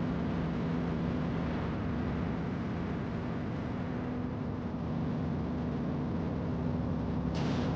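Cruise ship's engines running with a steady low drone under a hiss of noise as the ship moves slowly through the canal. A brief sharp hiss near the end.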